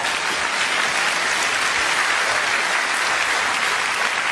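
Large audience in a hall applauding steadily.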